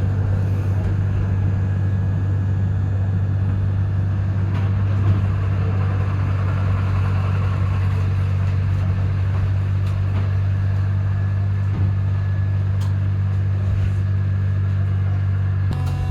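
Melbourne Z-class tram running, a steady low hum with a couple of light knocks.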